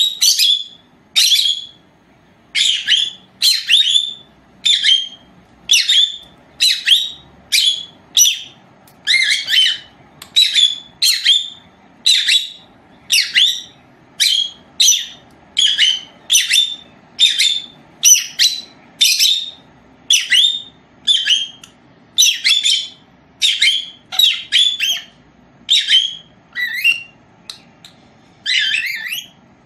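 Lovebird calling loudly over and over: short, sharp, high-pitched chirps, a little more than one a second.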